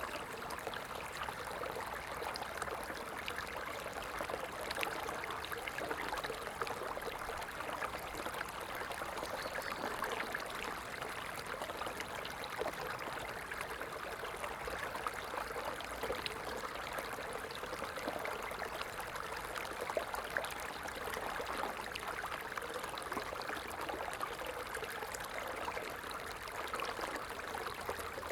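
Stream water flowing and trickling steadily, a dense, even splashing with many small sharp droplet sounds and no let-up.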